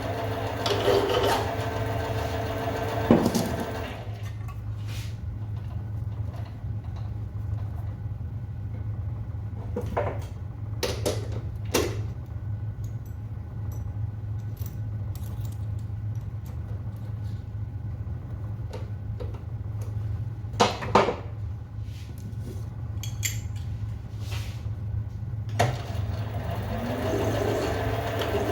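Hand filing of a small steel pistol firing pin, a rapid rasping scrape for the first few seconds and again near the end. Between the two bouts a steady low hum runs under a handful of sharp metallic clicks and taps as small parts are handled.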